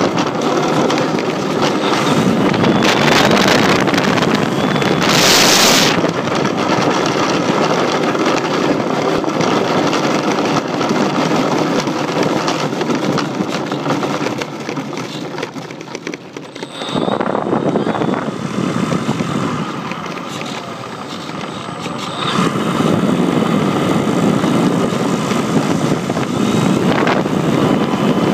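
Wind rushing over the microphone of an iPhone riding on a model Cessna, mixed with the plane's motor and propeller, as it rolls along a road. The noise eases off for several seconds in the middle, then comes back up.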